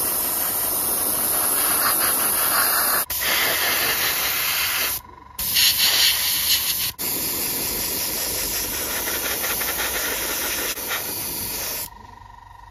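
Airbrush spraying paint: a loud, steady hiss of compressed air with a few short breaks, stopping about a second before the end.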